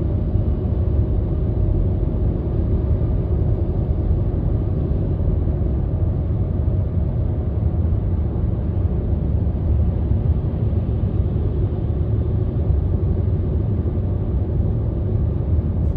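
Car on the move, a steady low rumble of engine and road noise with a faint thin whine over it, the whine the owner cannot place.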